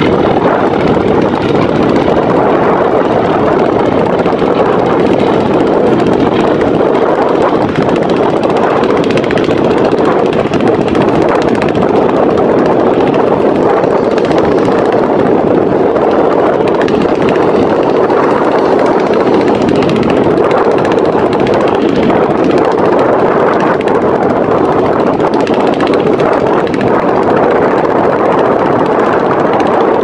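Loud, steady rushing noise of strong wind and rough water, with a boat engine's drone underneath, unbroken throughout.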